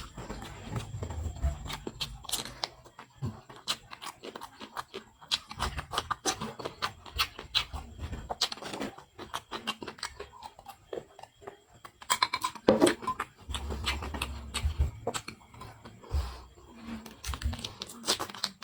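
Close-miked eating of spicy seafood: wet chewing, smacking and sucking, with many irregular sharp clicks and occasional low thumps.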